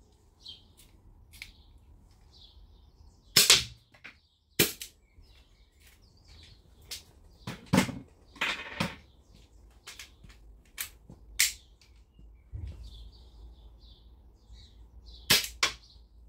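Air pistol firing a string of single shots at irregular intervals, the loudest about three and a half seconds in, with faint bird chirps between the shots.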